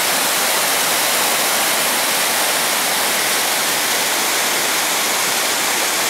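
Waterfall pouring over a rock ledge: a steady, even rush of falling water, full of hiss, with nothing standing out from it.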